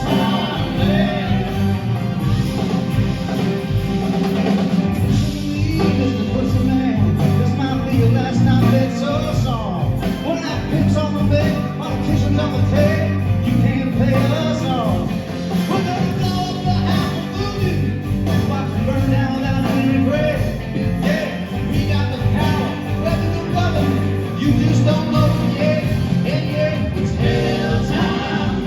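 Live rock band playing at a steady loudness: drums, bass and guitars, with a wavering melodic lead line on top.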